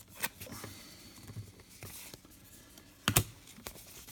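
Trading cards being handled and slid against one another: soft scrapes and small clicks, with a sharper click about three seconds in.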